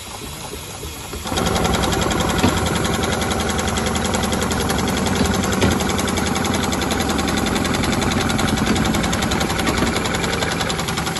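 Dürkopp Adler heavy-duty industrial sewing head on an automatic belt-sewing machine starting up about a second in and stitching at speed, a fast, even needle clatter that holds steady.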